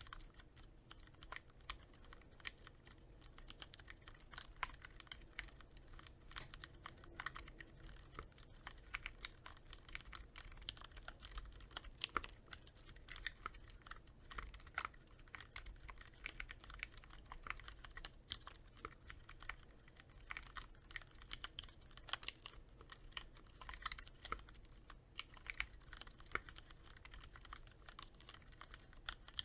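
Typing on a Cherry MX Board 3.0S mechanical keyboard with Cherry MX Red linear switches, quick-lubricated with Krytox 105: a continuous, irregular run of key clacks.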